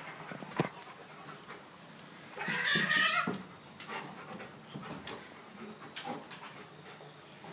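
A German Shepherd and a cat tussling on a wooden floor: scattered knocks and scuffles of paws, with one short whining call from the dog lasting about a second, about two and a half seconds in.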